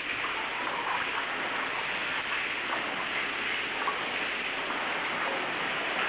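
Water from a small artificial waterfall in a hot-spring bath pouring into the pool: a steady splashing rush.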